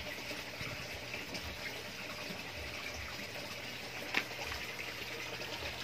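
Steady bubbling and trickling of water from an aeration line releasing air into a goldfish pond, with a faint low hum and one sharp click about four seconds in.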